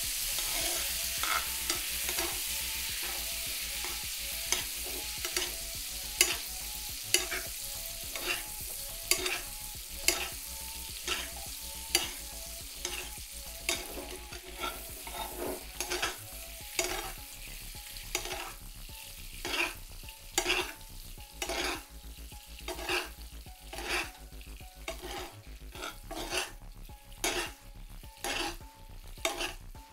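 A cauliflower steak sizzling in a frying pan while it is basted with a metal spoon, the spoon clinking and scraping against the pan over and over. The sizzle is loudest at the start and slowly dies down, while the clinks come faster towards the end.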